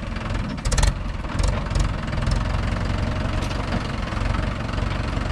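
Mahindra 585 DI XP Plus tractor's four-cylinder diesel engine running at low revs with a steady chug, throttled back from the louder running either side. A few sharp clicks come about a second in.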